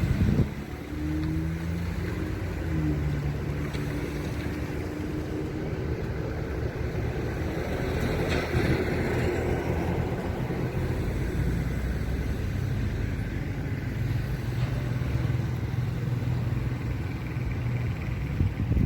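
A motor vehicle's engine running steadily with road noise, its low hum shifting in pitch now and then.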